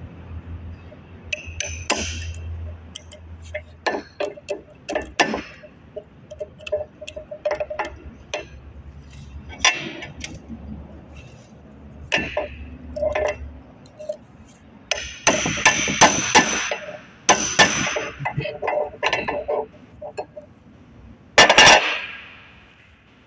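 Steel hammer striking a hydraulic motor's metal housing on an anvil, irregular ringing metallic clinks and clanks, with a quick run of blows past the middle and one loud strike near the end. It is part of knocking the shaft seal out of the housing.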